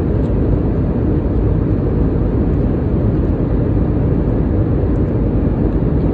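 Steady low rumble of an airliner cabin: engine and airflow noise.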